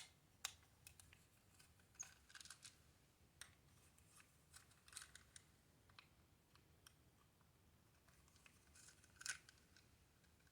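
Faint, scattered clicks and short scrapes of a screwdriver with a triangle security bit turning out the small screws in a plastic toy's back.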